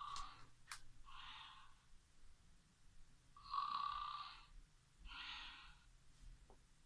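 Faint snoring from another room: two pairs of rasping snores about three and a half seconds apart, the first snore of each pair carrying a steady whistling tone.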